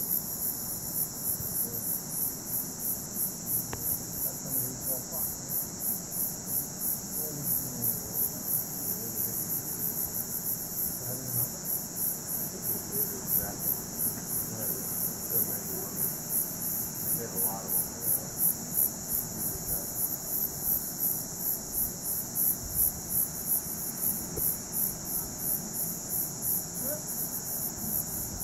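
Night insects chirping in a steady, high-pitched rhythm of about two to three pulses a second, over a continuous high trill.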